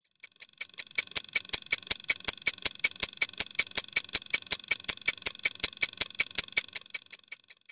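Rapid mechanical clockwork-style ticking sound effect, about five to six bright, metallic ticks a second, like gears turning. It builds up over the first second, then runs evenly and stops just before the end.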